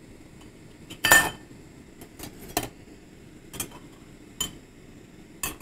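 A metal table knife clinking against the stainless steel lid of a Zebra billy pot as the lid is prised up to check whether the water is boiling. There are about six separate clinks; the loudest, about a second in, rings briefly.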